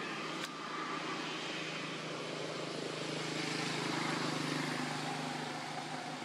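A steady engine-like hum with a noisy wash that swells gently in the middle and eases off again, with a single sharp click about half a second in.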